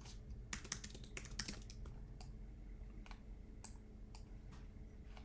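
Computer keyboard keys clicking as someone types and works at a computer: a quick run of taps in the first second or two, then single clicks about every half second, over a faint steady hum.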